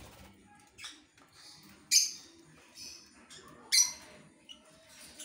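Lovebirds calling in a colony cage: two loud, sharp, shrill shrieks about two seconds and nearly four seconds in, with fainter short chirps between them.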